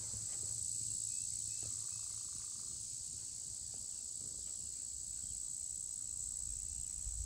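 Insects calling in a steady, high-pitched drone, with a few faint short chirps about a second in.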